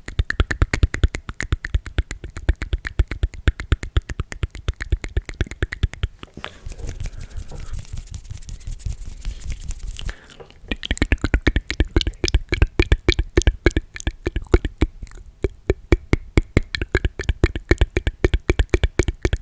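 Rapid, wet mouth and tongue clicks made close to the microphone, many a second. About six seconds in they give way for a few seconds to a softer hissing sound, then the clicking resumes.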